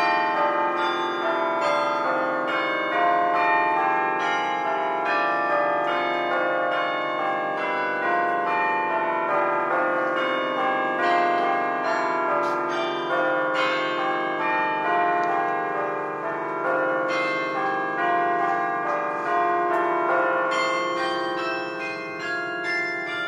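Church bells ringing a peal: many bells struck in quick succession, with deeper bell tones ringing on steadily underneath.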